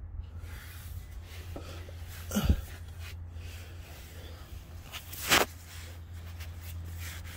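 Two short knocks about three seconds apart over a steady low hum: handling noise from a hand and camera working around a car's front drive axle and suspension. The first knock is a dull thump and the second is sharper.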